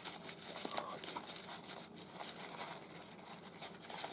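Small handling noises: scattered light clicks and rustling as grease is worked into a spinning-reel bearing by hand.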